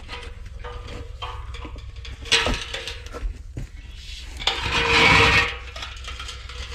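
Knocks, clicks and scraping as a heavy, rusty steel propane tank is handled on wooden boards and grass, with a louder rush of scraping noise about five seconds in, over a steady low hum.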